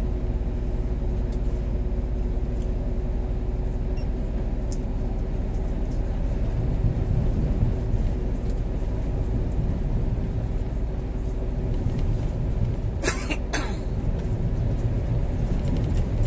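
Scania G410 truck's diesel engine running steadily under way, with low road rumble heard from inside the cab. Two sharp clicks come about half a second apart near the end.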